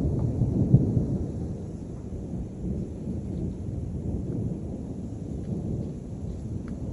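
Low rolling rumble of thunder, loudest in the first second or so, then easing off to a steadier grumble.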